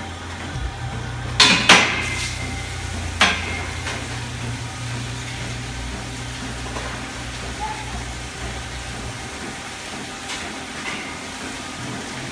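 Steel parlour gates and pipework clanking: three sharp, ringing metal knocks in the first few seconds, over a steady low machine hum that stops about nine seconds in.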